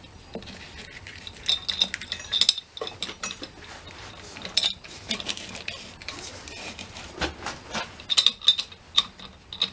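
Irregular light metallic clicks and clinks from handling a galvanized-pipe hone wrapped in sandpaper, as it is pushed into a wooden bearing bore and its end is fitted into a drill chuck. The clicks come more often near the end.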